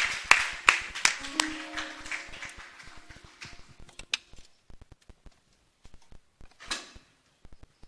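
Congregation clapping in a steady beat, about three claps a second, fading out over the first couple of seconds while a few held musical notes sound; after that only scattered faint taps and knocks.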